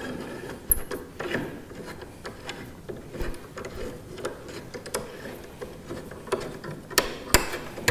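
Clamps being fitted and tightened to hold a wooden boat stem against a plywood form: irregular small clicks and knocks of metal and wood, with two sharper clacks about seven seconds in.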